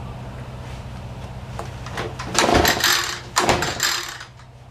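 Echo PB-2520 two-stroke handheld leaf blower being pull-started cold: two pulls on the recoil starter, each about a second of rope and cranking engine, starting about two seconds in, without the engine staying running. A steady low hum runs underneath.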